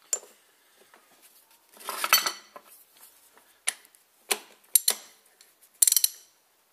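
Steel 36 mm socket and extension clinking and rattling as they are fitted together onto an oil filter housing cap: a handful of sharp metallic clinks, a rattling cluster about two seconds in, and a quick run of clicks near the end.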